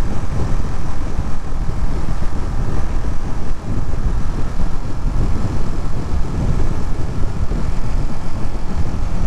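Ducati Monster motorcycle running steadily at highway speed, a little over 70 mph, its engine drone mixed with wind rush.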